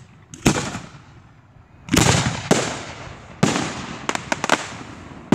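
Aerial firework shells bursting overhead: several loud bangs at uneven intervals, each trailing off in echo. About four seconds in comes a quick run of sharp crackling reports.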